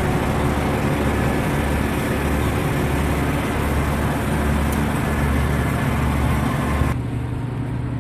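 Heavy machinery engines running steadily at a tree-removal job, a low drone with a steady hum. About seven seconds in, the upper hiss cuts off suddenly, leaving the low engine note.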